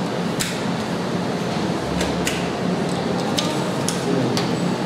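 Room noise with a steady low hum and several light, sharp clicks and knocks scattered through it as paper sheets are handled and passed across a table.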